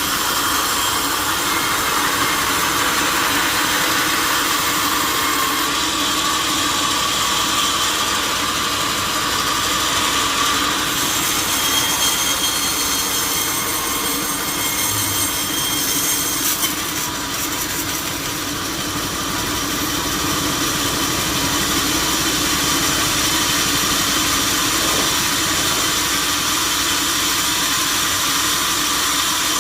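Sawmill saw and its machinery running steadily, with a brief dip in level about two-thirds of the way through.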